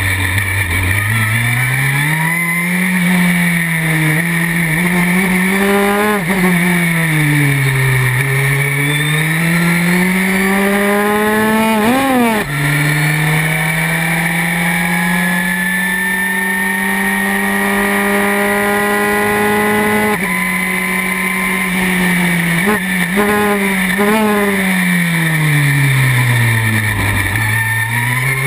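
Historic Formula 3 racing car engine at racing speed, heard onboard: revs climb through the gears and drop under braking for slow corners. In the middle it holds a long, steady flat-out note, and near the end it drops through the gears with a few quick blips before pulling away again.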